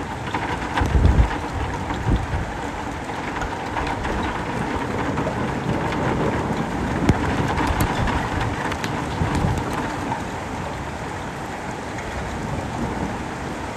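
Steady rain falling on the street and ground, with a strong low rumble about a second in and weaker ones later.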